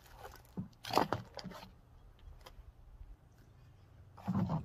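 Clear plastic bags of action-camera mounts crinkling and rustling as hands sort through them, with small plastic parts clicking. The loudest crinkles come about a second in, and handling grows louder again just before the end.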